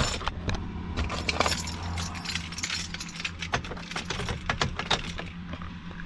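A bunch of keys jangling, a run of light metallic clinks and clicks for about five seconds, over a steady low hum, as the keys are handled at the steering column to switch the truck's key on.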